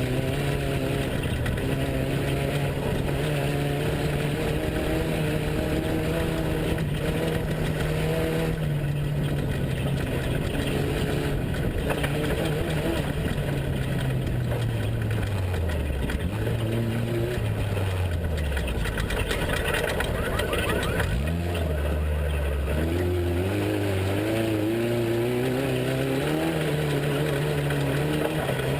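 Off-road race truck's engine running hard, its pitch holding steady, then falling away through the middle as it slows, and climbing again a little over two-thirds of the way through as it accelerates, over a steady rush of noise.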